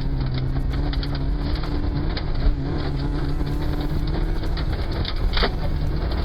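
Rally car engine running at fairly steady revs, its pitch creeping up slightly, with a sharp click about five seconds in.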